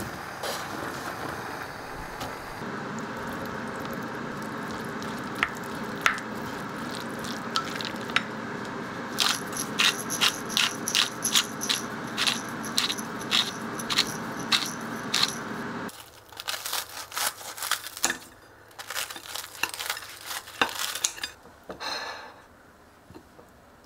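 A hand-twisted pepper mill grinding pepper over a glass bowl, a fast even run of sharp crackling clicks at about two or three a second. Before it there is a steady hum with a few scattered clicks, and after it a spoon scrapes and clinks against the glass bowl of macaroni salad.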